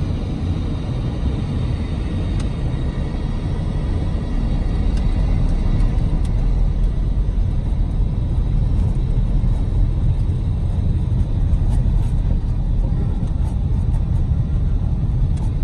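Steady low rumble of a car driving on a snow-covered road, heard from inside the cabin. It grows a little louder about four seconds in.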